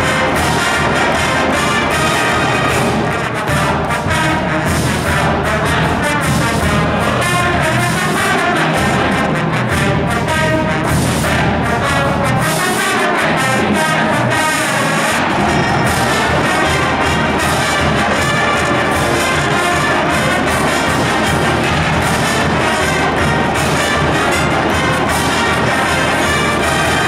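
Marching band playing at full volume: trumpets, mellophones and sousaphones over bass drum and cymbals. The lowest notes drop out for a couple of seconds about halfway through.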